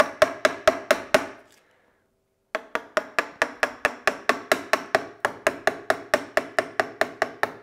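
Wooden mallet striking a chisel in quick, even blows, about four a second, each with a short ring, chopping out the waste of a half lap joint. The blows stop for about a second early on, then resume.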